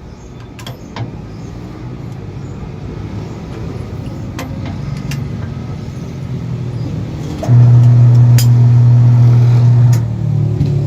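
Electric motor of a tire changer's turntable switched on, giving a loud steady mains hum for about two and a half seconds before cutting off abruptly. Before it there are a few light metallic clicks over a low background hum that slowly grows louder.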